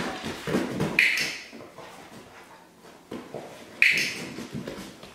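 A black Labrador's paws and claws on a wooden floor as it walks about: soft footfalls and light claw clicks, with two sharper clicks, one about a second in and one near four seconds.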